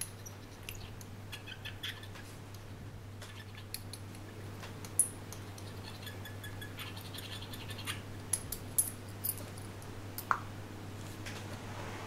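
Small clicks and taps of a metal tool and a small glass jar being handled on a table, with brief faint scraping from stirring the graphite-and-alcohol slurry, and one short high squeak about ten seconds in. A low steady hum runs underneath.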